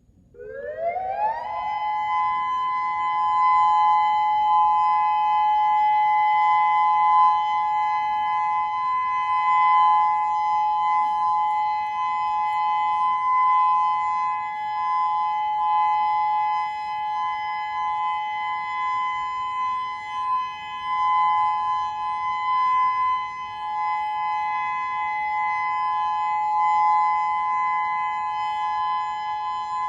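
Whelen WPS-2000-16 omnidirectional electronic warning siren sounding its steady alert signal. It starts with a quick rising glide, then holds a loud, steady tone made of two close pitches.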